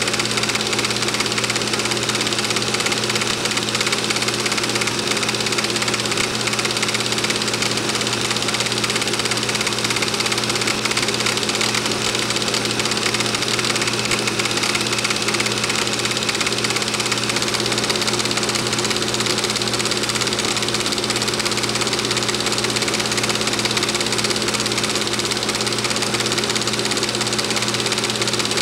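Film projector running: a steady motor hum with a fast, even clatter from the film mechanism, unchanging throughout.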